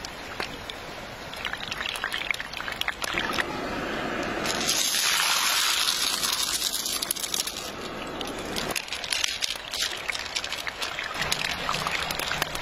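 Water sloshing and trickling, mixed with the clatter of river pebbles tumbling into a stone pot; a louder hissing rush fills the middle for about four seconds.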